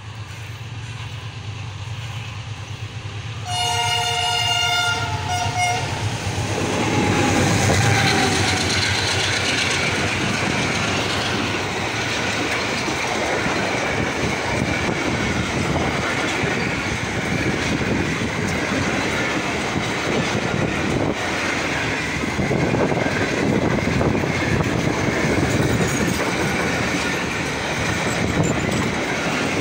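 An approaching AGE-30 diesel locomotive sounds its multi-tone horn for about two seconds, a few seconds in. The horn tails off falling in pitch as the locomotive draws level. A long rake of passenger coaches then passes close by, its wheels clattering steadily over the rail joints.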